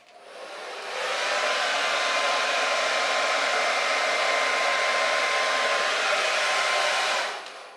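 Hand-held hair dryer switched on, building up over about a second to a steady rush of blowing air with a faint whine, then dying away near the end.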